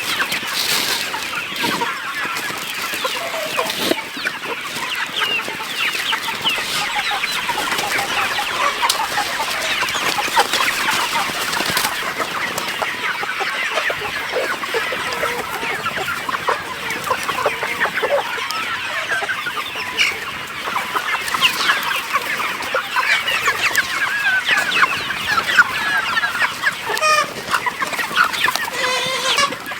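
A flock of chickens clucking and calling, many short calls overlapping without a break, with a quick run of rapidly repeated notes near the end.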